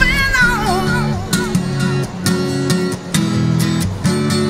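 Background song: a sung line in the first second, then strummed guitar chords in a steady rhythm.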